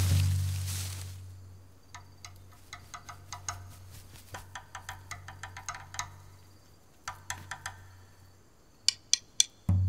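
A drum beat ends on a hit that rings out with a hissing wash, then scattered soft clicks and taps follow. A few sharper clicks come just before the drumming starts again near the end.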